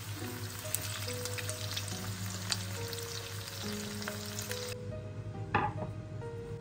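Chicken-and-grated-potato patties sizzling and crackling in hot oil in a frying pan, cutting off suddenly about three-quarters of the way through. A single knock follows as a wooden cutting board is set on a stone countertop, over background music with held notes.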